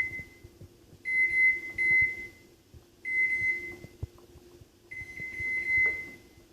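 Microwave oven's electronic control beeping: a high, pulsing beep tone repeated about every two seconds, over a faint low hum.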